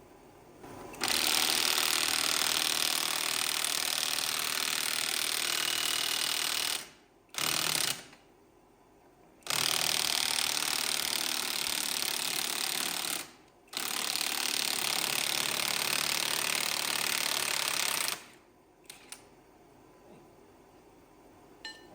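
Impact wrench hammering in long bursts with short pauses between, running bolts off the tractor's front end.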